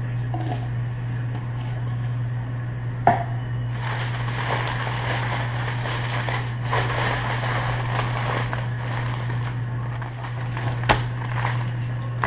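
Aluminium foil crinkling and rustling as it is folded and crimped shut around a rack of pork ribs, with a couple of sharper clicks, over a steady low hum.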